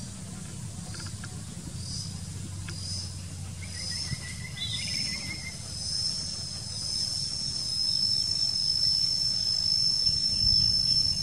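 Insects in the forest canopy buzzing on one high, steady note that swells from faint to loud over several seconds, then cuts off suddenly near the end. A short trilling chirp sounds about four seconds in, over a low background rumble.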